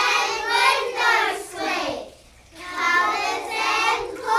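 A child singing, in two phrases with a short break about two seconds in.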